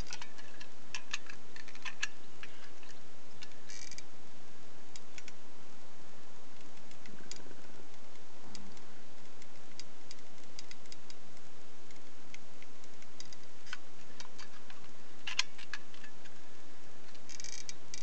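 Scattered light clicks and ticks from a new tube of bond and sealer being handled and squeezed while the sealant is slow to come out, over a steady hiss.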